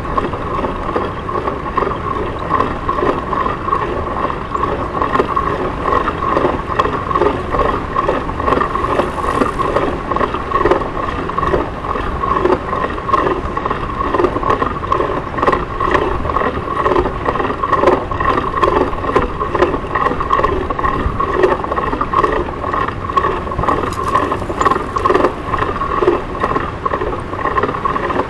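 Steady rush of wind and tyre noise from a Citi Bike being ridden along city streets, with small rattles and ticks from the bike throughout, heard through a body-worn camera's microphone.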